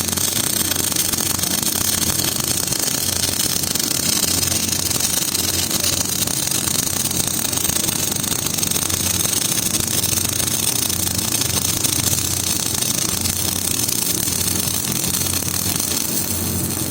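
MIG welding arc running continuously, a steady hiss and crackle over a low electrical hum from the welder.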